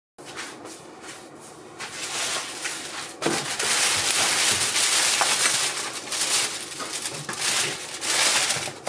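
Thin plastic shopping bag rustling and crinkling as packs of food are lifted out of it, quieter at first and louder from about three seconds in.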